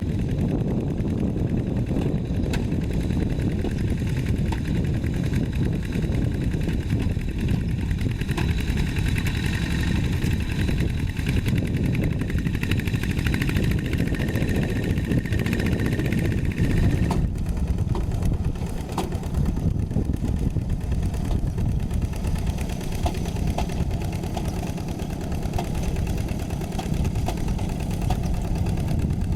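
Tractor diesel engine running steadily under ploughing work. A higher whine rides on it from about a third of the way in and cuts off a little past halfway.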